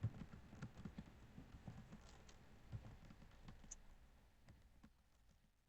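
Faint typing on a computer keyboard: a quick run of key clicks that thins out and stops about five seconds in.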